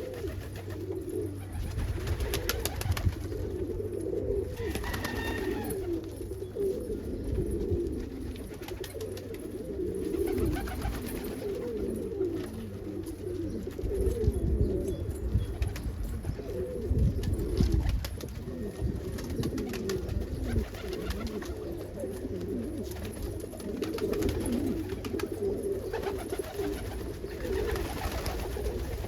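A loft full of homing pigeons cooing, many birds at once, their low wavering coos overlapping without a break.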